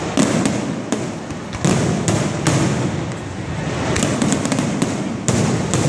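Aerial fireworks display: shells bursting in a rapid string of bangs and crackles over a continuous rumble. Heavier booms come just after the start, at about a second and a half, and again near the end.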